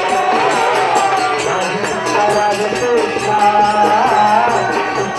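Devotional kirtan music: singing over a steady jingling percussion beat.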